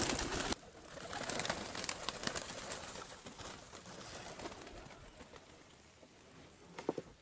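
Wood pigeons taking off from the trees with a clatter of wings, loud at first and dropping off sharply about half a second in, then fading as the flock leaves.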